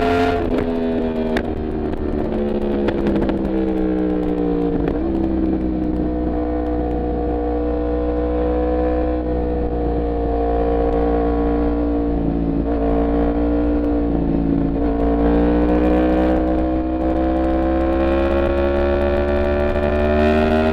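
Yamaha MT-10's crossplane inline-four engine under way: revs drop over the first few seconds in a couple of steps, hold low through the middle, then climb steadily toward the end. A steady low wind rumble runs underneath.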